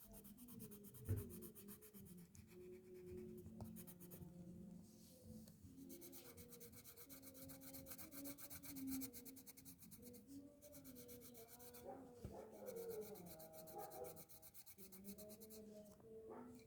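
Colour pencil rubbing on a colouring book page, faint and continuous: the scratchy back-and-forth strokes of shading in an area with blue pencil.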